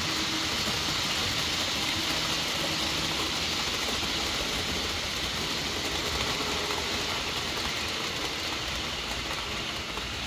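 HO scale model commuter train running on sectional track: a steady hum and rattle of its motor and wheels on the rails, easing slightly near the end.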